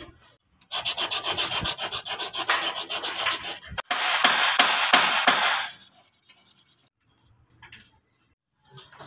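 Hand sanding: rapid back-and-forth rubbing strokes of abrasive on a hard surface, about six strokes a second, for about three seconds. After a brief break a denser stretch of rubbing follows and stops about six seconds in.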